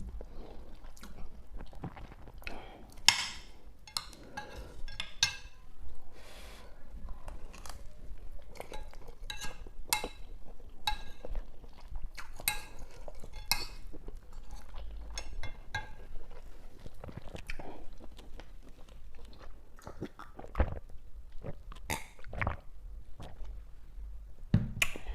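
A person chewing and eating close to the microphone: irregular wet mouth clicks and smacks throughout, with now and then a light clink of a utensil.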